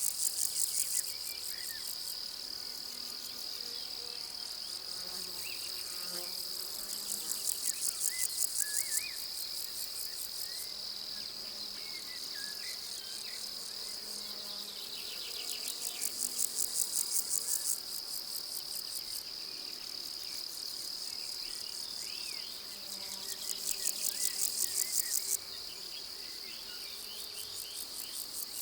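Summer pasture insects stridulating: a steady high-pitched buzz. Over it, about four bouts of rapid pulsed chirping come and go, each lasting two to three seconds. Faint short bird chirps come and go underneath.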